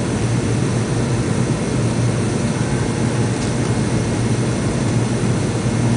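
Steady cabin noise of an MD-80 airliner in flight, heard from inside the cabin: a low, even drone from its rear-mounted Pratt & Whitney JT8D turbofans under the rush of air along the fuselage.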